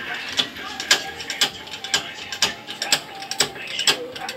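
Regular metallic ratcheting clicks, about two a second, from the press being worked on a Bajaj RE steering knuckle to press out the pivot pin.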